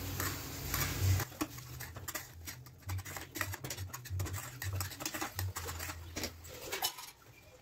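A spoon stirring and scraping a thick mix of chopped tomatoes, capsicum and potato in a nonstick kadai, with irregular scrapes, clicks and soft knocks of the pan.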